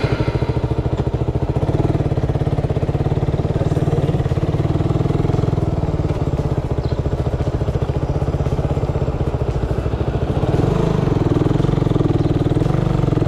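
Suzuki Raider 150's single-cylinder four-stroke engine running steadily as the motorcycle pulls away and rides slowly, heard from on the bike. The engine gets a little louder about ten seconds in.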